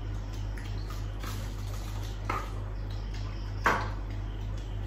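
Light clicks and taps of utensils and fingers against a plate on a glass table as food is picked up, with one sharper click about three and a half seconds in, over a steady low hum.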